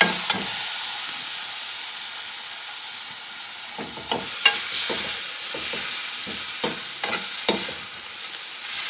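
Vegetables stir-frying in sauce in a metal wok, sizzling steadily, with a slotted spatula scraping and knocking against the pan in quick repeated strokes from about four seconds in.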